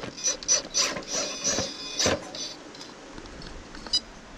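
Electric motor and gear drivetrain of a 1:10 scale RC rock crawler whining in a quick series of short throttle bursts as it climbs rocks, quieter after about two and a half seconds. There is a sharp knock about two seconds in.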